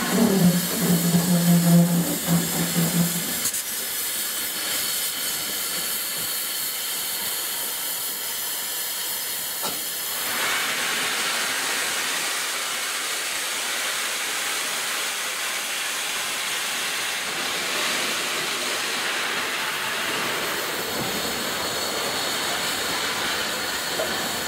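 Steady hiss of steam from the Peppercorn A1 Pacific steam locomotive 60163 Tornado as it moves slowly past, with a low steady tone over the first three seconds. About ten seconds in the hiss grows fuller and deeper.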